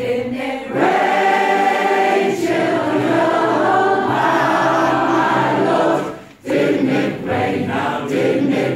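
Large mixed choir of children and adults singing a gospel spiritual together, holding one long chord from about a second in until it cuts off around six seconds, after which more voices come in.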